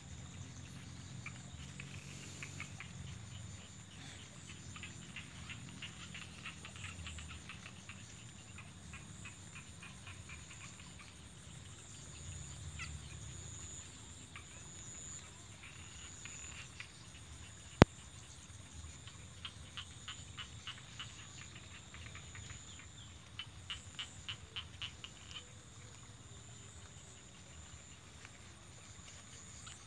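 Crickets and other insects calling: a steady high trill underneath, with runs of rapid pulsed chirps coming and going. A single sharp click a little past halfway is the loudest sound.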